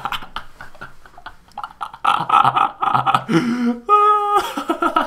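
A person laughing hard in quick breathy bursts that grow louder about two seconds in, ending in a falling squeal and a brief high, held wheeze.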